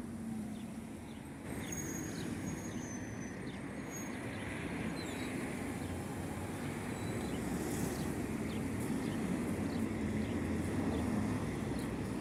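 Street traffic noise of yellow city buses running and pulling past a bus stop: a steady rumble that steps up slightly about one and a half seconds in.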